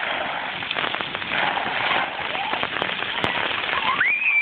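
Splash pad water jets spraying and pattering onto wet concrete, a steady hiss like rain, with a child's high squeal near the end.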